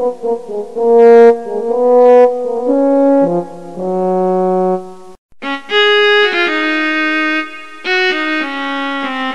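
Soundtrack music of slow, held chords that change about once a second, with a brief break about five seconds in.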